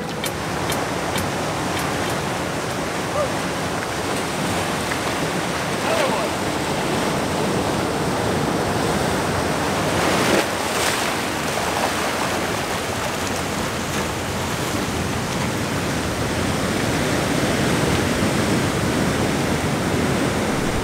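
Ocean surf breaking and washing around coastal rocks: a steady rush of water, with one louder crash about halfway through.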